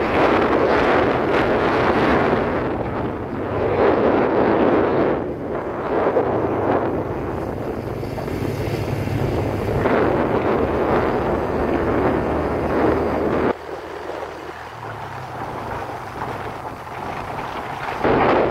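Wind rushing over the microphone on a moving Yamaha motorcycle, with the engine's steady hum underneath. The wind noise drops off suddenly about two-thirds of the way through and comes back just before the end.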